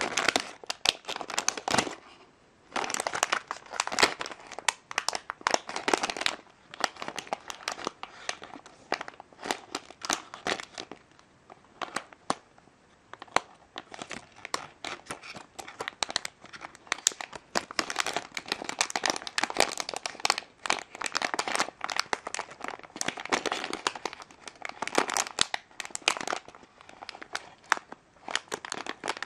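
A LEGO Minifigures blind bag, a thin foil packet, crinkling and crackling as fingers handle and squeeze it. The crinkling comes in stretches, with a couple of short pauses.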